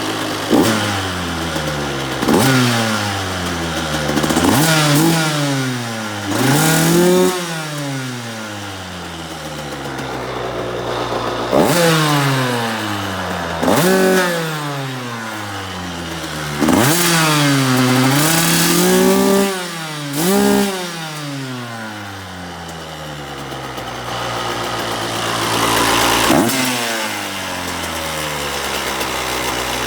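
KTM SX85 two-stroke single-cylinder engine revved in about ten sharp throttle blips, the revs sliding back toward idle between them. The owner hears a noise from the gearbox area and suspects gearbox damage or the clutch.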